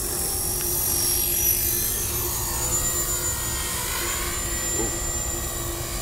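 Small electric radio-controlled helicopter, a T-Rex 250, lifting off and climbing: a high motor-and-rotor whine that rises in pitch over the first second or so and then holds steady, over a low rumble.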